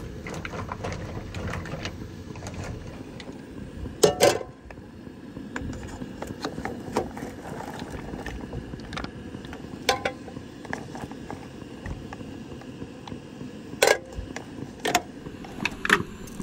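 A pot of mussels steaming, with a few sharp clicks and knocks over a steady low rumble.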